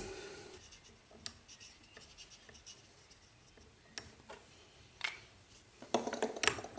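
Faint clicks and taps of small metal measuring tools being handled and set down on a steel surface plate, with a louder clatter of handling about six seconds in.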